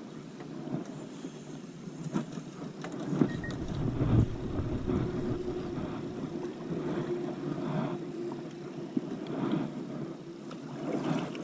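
A kayak moving on the water: water sloshing against the hull with scattered knocks and a heavier thump about four seconds in, and wind on the microphone.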